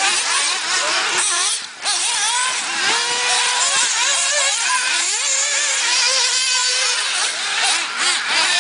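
Several 1/8-scale nitro RC buggy engines racing together, their high-pitched buzz rising and falling over and over as the cars accelerate and lift off around the track, with a short dip in level about a second and a half in.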